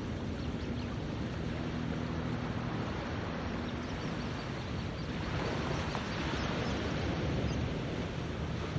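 Ocean surf and wind at the shore, a steady rush that swells louder about five seconds in as a wave comes through. A faint low steady hum sits underneath.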